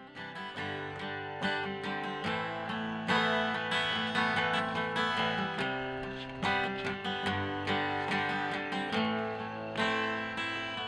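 Steel-string acoustic guitar strumming chords in a steady rhythm.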